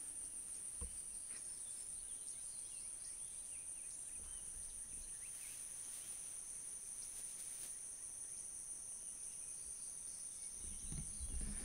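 Insects in the grass buzzing steadily: a faint, unbroken high-pitched chorus holding two tones. A faint low rumble creeps in near the end.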